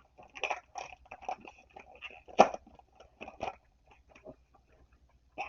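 Irregular crinkling and rustling of a foil trading-card booster pack and cards being handled, a series of short crackles with one louder crackle about two and a half seconds in.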